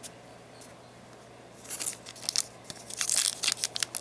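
Foil Yu-Gi-Oh booster pack wrapper being crinkled and torn open in quick sharp crackles, starting a little under two seconds in and getting busier toward the end.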